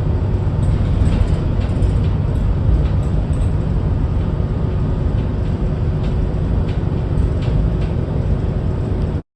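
Steady low rumble of a moving vehicle, with a faint steady hum and a few light ticks, cutting off abruptly near the end.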